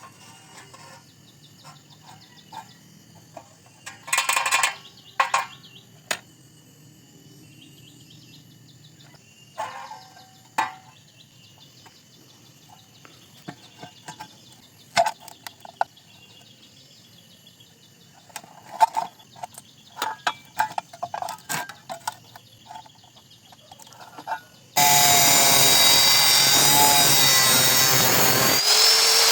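Scattered light metallic taps and clinks with a few short ringing knocks, then near the end a loud power tool starts abruptly and runs steadily, with a high wavering whine over a harsh rasping noise.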